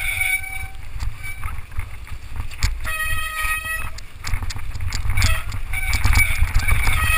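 Mountain bike rattling and rumbling down a rough, rocky trail, heard through a handlebar-mounted camera, with brakes squealing in short high-pitched spells a few times.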